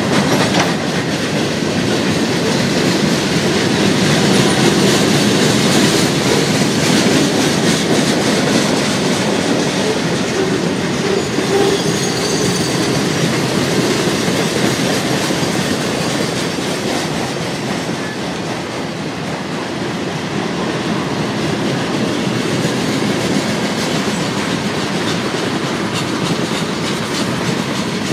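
Cars of a mixed freight train (boxcars, autoracks, tank cars) rolling past close by: a steady rumble of steel wheels on the rails.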